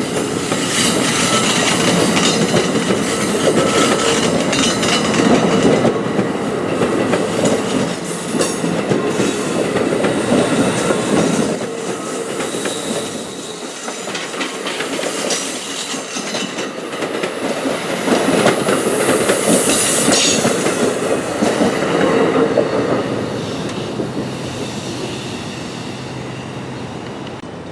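NJ Transit Multilevel double-deck passenger coaches rolling past, wheels clattering over the rail joints. The noise dips about halfway through, swells again, then fades as the last car goes by near the end.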